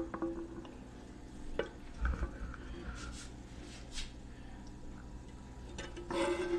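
Thick cheese sauce being poured from a pan and worked out with a metal spoon: a few faint clinks and scrapes of the spoon against the pan and soft plops of sauce, over a low steady hum.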